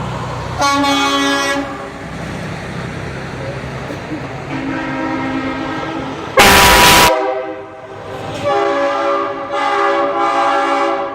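Semi-truck haulers blasting loud air horns in several long, multi-note horn blasts. About six and a half seconds in comes a very loud, harsh burst of noise.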